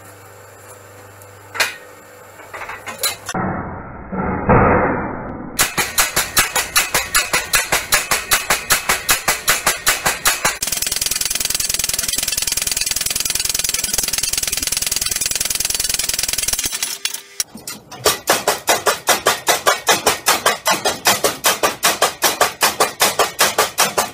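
Homemade power hammer pounding a glowing hot steel bar on its anvil die in rapid, evenly spaced blows, about three a second, with a short break about two-thirds of the way through before the blows resume.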